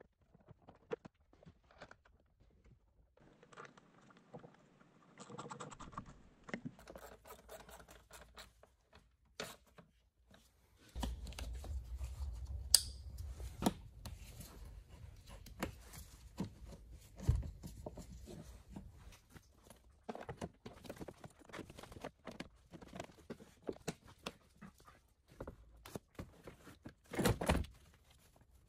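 Gloved hands refitting plastic engine-bay parts: the air filter housing, the clip on the air intake pipe and the battery tray pieces, with scattered clicks, knocks and rustles. A low rumble comes in about eleven seconds in, with a sharp snap soon after and a couple of louder knocks near the end.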